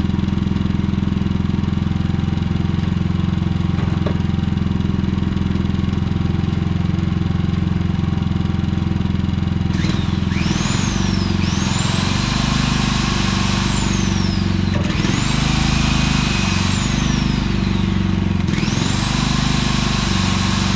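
Predator inverter generator engine running steadily in eco mode, no longer surging now that the electronic throttle adjustment has been reset. About ten seconds in, a high-pitched electric motor spins up, runs and winds down three times, and the generator's engine note shifts as it takes each load.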